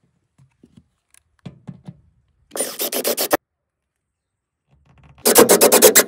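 Cordless drill driving screws through an aluminium solar-panel bracket into a metal sandwich-panel roof. It runs in two short bursts of about a second each, with a fast rattle, after a few light clicks and taps of handling.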